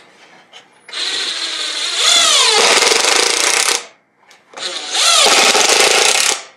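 Cordless DeWalt impact driver driving 1-inch coarse-thread drywall screws into MDF. There are two runs, about three seconds and then about two seconds long, with a short pause between them.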